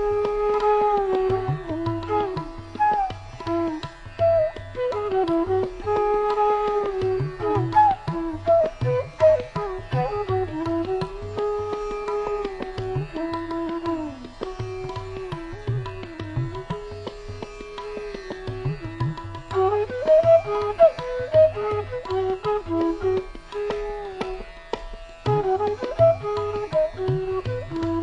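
Indian classical-style instrumental background music: a melody with long held notes that slide and bend, over a steady hand-drum rhythm.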